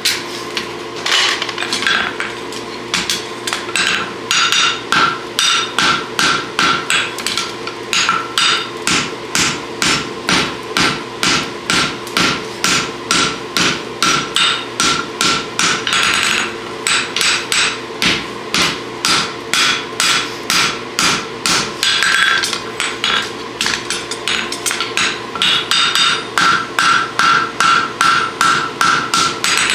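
Hand hammer striking a red-hot steel draft horseshoe on the anvil horn to turn the shoe's lateral branch. The blows come steadily, about two to three a second, with the anvil ringing between them. There are a couple of short pauses.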